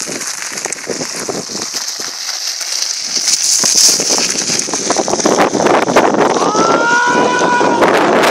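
Mountain bike tyres crunching and crackling over a loose gravel track while riding, with wind buffeting the microphone and growing louder from about halfway through.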